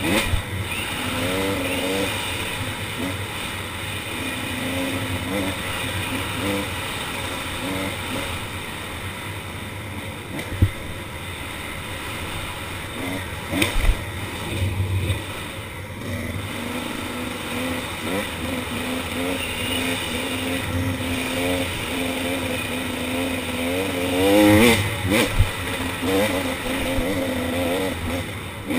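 KTM 300 XC two-stroke dirt bike engine running under way, revs rising and falling with the throttle, and a hard climb in revs near the end. Heard from a camera mounted on the bike, with two sharp knocks about ten and fourteen seconds in.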